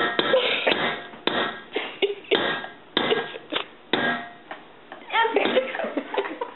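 A rubber spatula and spoon scraping and knocking against the side of a metal pot while stirring thick melted chocolate, butter and peanut butter, with irregular clacks every half second to a second. Faint voices come in near the end.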